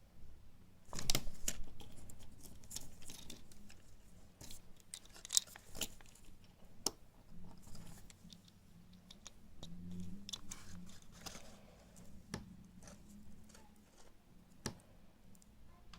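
Hands handling a Kinder Surprise egg's wrapper, plastic capsule and small toy pieces: irregular clicks, crinkles and rustles, loudest about a second in.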